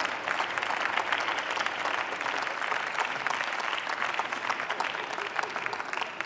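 Applause: a group of many people clapping their hands steadily.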